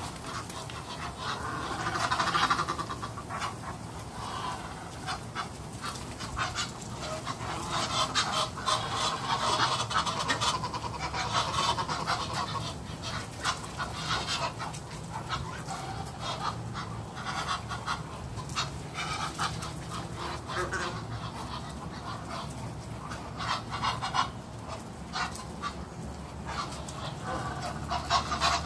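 A flock of Egyptian geese calling: many short, harsh calls, one after another, loudest about two seconds in and again a third of the way through.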